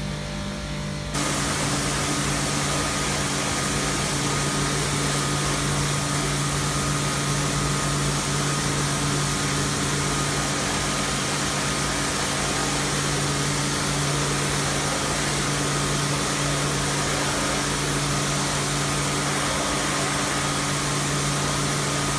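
Pressure washer switching on about a second in, then running steadily: its motor-driven pump hums under a loud hiss of water spraying onto a car's AC condenser to rinse it clean.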